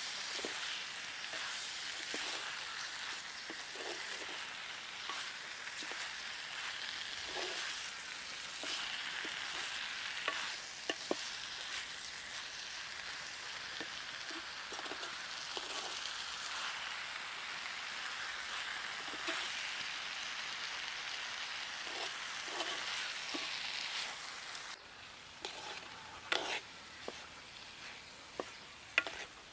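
Pineapple tempered sizzling as it fries in a pan and is stirred, with a spoon clicking and scraping against the pan. Near the end the sizzling drops away, leaving a few sharp clicks.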